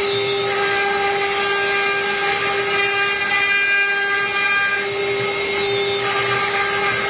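CNC router spindle running with a steady high whine as its cutter engraves PVC sheet. Higher tones over it shift about half a second in and again near five seconds, as the machine's moves change.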